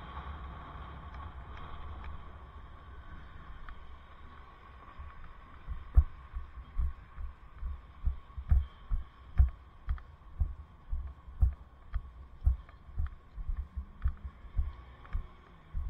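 Steady low rumble of riding, then from about six seconds in, regular dull thuds about twice a second, each with a light click. These are footsteps carried through the body to a helmet-mounted camera, walking the bicycle along the sidewalk.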